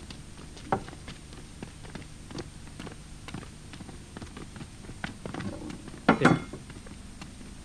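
Footsteps of two people walking on a paved courtyard: irregular clicks and taps of shoe soles, with a louder scuffing noise about six seconds in, over a steady low hum.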